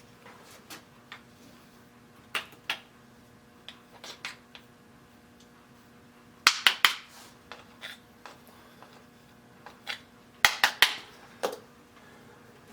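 Metal tools and parts clinking and clattering as they are handled and set down on a workbench. A few sharp clicks come first, then two louder bursts of clanks about six and ten seconds in, over a faint steady hum.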